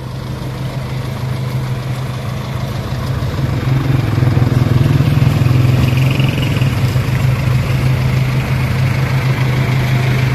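Truck engine idling steadily with an even low hum, getting louder about four seconds in as it comes closer, then holding steady.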